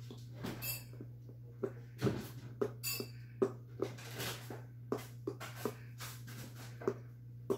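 Poodle puppy chewing a Kong Squeezz Crackle Bone: irregular sharp clicks and crunches of teeth on the hard rubber bone, about one or two a second, over a steady low hum.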